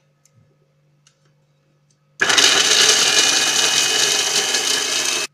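Electric food processor switched on, its spinning blade chopping walnuts: a loud, steady machine noise with a high motor whine that starts suddenly about two seconds in, runs about three seconds and cuts off sharply.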